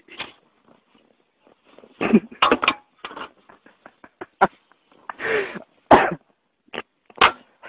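A person coughing and wheezing in short, irregular bursts, several of them harsh and loud.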